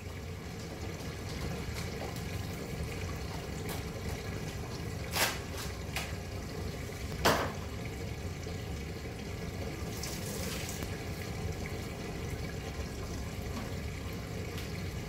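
Steady rush of running water, with a few sharp knocks about five to seven seconds in and a brief hiss around ten seconds in.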